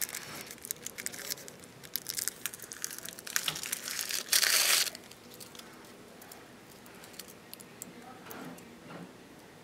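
Plastic wrapping crinkling and rustling in the hands, with a louder tearing sound lasting about half a second around four and a half seconds in; only faint handling noise after that.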